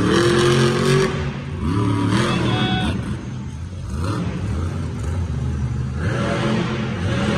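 Monster truck engine revving up and down several times over a steady rumble, easing off for a moment about three seconds in.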